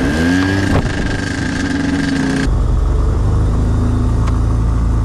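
The propeller engine of a self-launching glider, just started. It revs up and down in the first second, then runs steadily. About halfway through it changes to a deeper, slightly louder steady drone as power comes up for the takeoff roll on grass.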